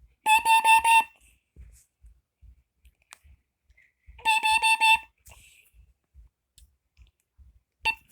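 Kidde Nighthawk KN-COD 5825 carbon monoxide alarm sounding its test alarm: two short bursts of rapid loud beeps, about four seconds apart.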